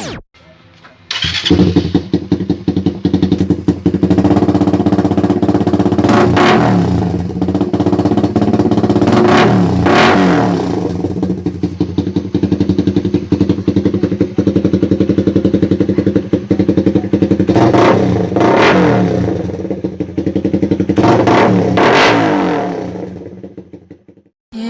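Suzuki Raider R150 Fi single-cylinder four-stroke engine running through a Cha Rama 9 conical aftermarket exhaust pipe. It comes in about a second in, idling loud with a rapid exhaust beat, and is blipped several times in short revs. It fades away near the end.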